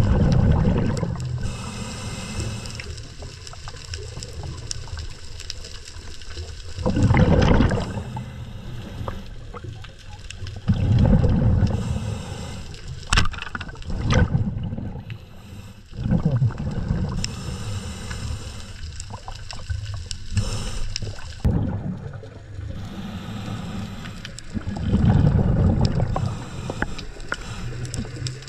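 A scuba diver breathing through a regulator underwater: a hiss on each inhale, then a low rumble of exhaled bubbles, repeating every few seconds.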